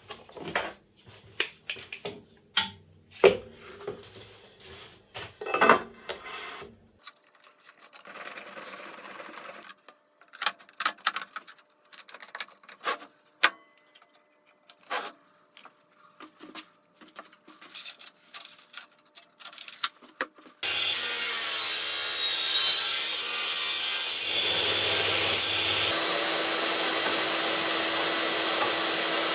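Knocks and clatter of wood and aluminium extrusion being set down, slid and clamped on a wooden table saw sled. About 20 seconds in, a vacuum-type motor, the workshop dust extractor, switches on suddenly and runs steadily with a high whine.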